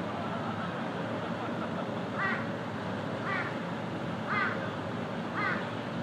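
Four short, harsh animal calls about a second apart, starting about two seconds in, over a steady background rush.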